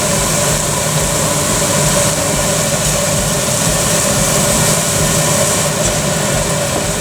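Steady mechanical hum, like a running fan or motor, with a low drone and a few steady tones that do not change.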